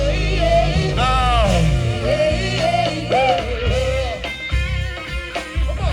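Upbeat band music: a steady bass and drums under melodic lines that bend up and down in pitch, in an instrumental stretch between the verses of a song.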